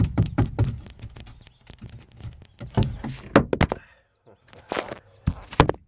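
Irregular knocks, taps and clatter of handling, with a few sharper clicks around three and five and a half seconds in. The sound breaks off briefly about four seconds in.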